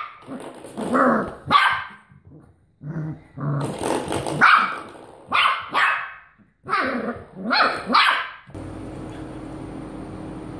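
A puppy barking in short, high yaps, about ten in quick succession, with a lower growl about three seconds in. The barking stops suddenly near the end, leaving a steady background noise with a low hum.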